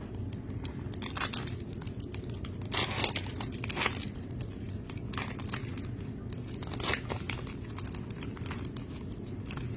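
Trading card pack wrappers being torn open and crinkled: a string of irregular sharp rips and crackles over a steady low hum.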